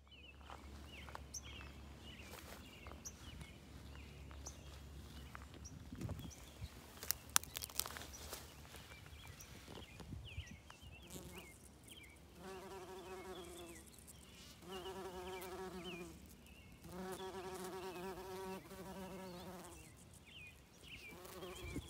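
Bumblebee buzzing in several bursts of one to three seconds in the second half, a low even hum with the rise and fall of it flying close and moving away. A few sharp clicks near the middle are the loudest sounds.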